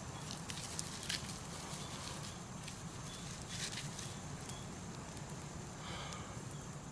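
Quiet outdoor woodland background with a steady low rumble and scattered faint small clicks and rustles.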